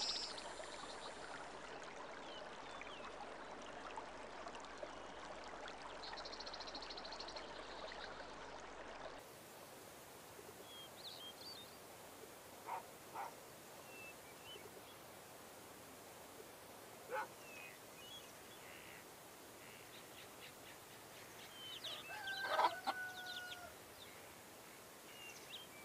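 Faint steady rush of a swollen river's flowing water for about the first nine seconds. It then gives way to quieter rural background with small bird chirps and a few short distant barks. A rooster crows near the end, the loudest sound.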